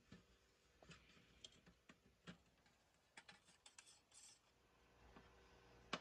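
Near silence with faint, scattered light clicks and taps of metal canned-heat fuel cans being handled in the stove's tray.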